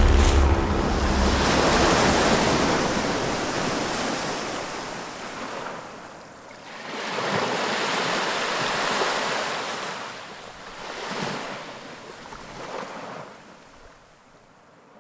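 Ocean waves washing in, rising and falling in three swells and fading out near the end.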